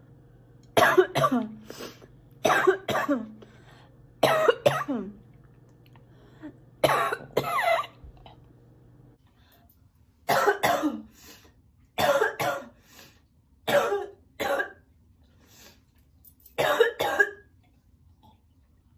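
A sick girl coughing over and over in eight fits of two or three coughs each, roughly every two seconds.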